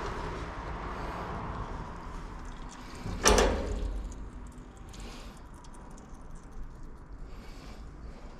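A single loud knock about three seconds in, ringing briefly, over a steady background hiss.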